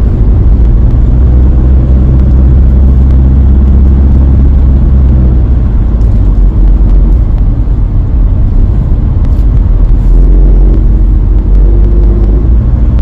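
Campervan's engine and road noise heard from inside the cab while driving: a loud, steady low drone whose engine note shifts slightly near the end.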